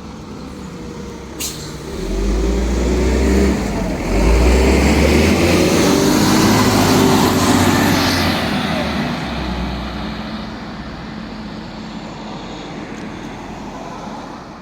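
Engine of a vintage bus pulling away and passing. It grows louder about two seconds in, its note rising through a gear change, then dies away.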